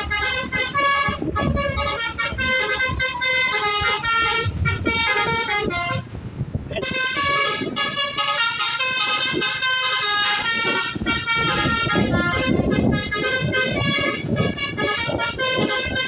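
Bus 'telolet' musical air horn, a Basuri V3 multi-trumpet horn, playing a melody of quickly changing notes almost without pause, with one short break about six seconds in.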